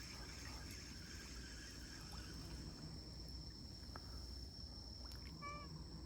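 Strong wind rumbling on the microphone, a steady low rumble, with a short wavy chirp near the end.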